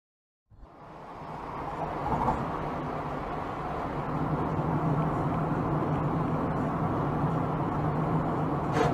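Road noise of a car driving at speed, heard from inside the cabin: a steady rush of tyre and engine noise with a low hum. It fades in about half a second in, and a sharp click comes right at the end.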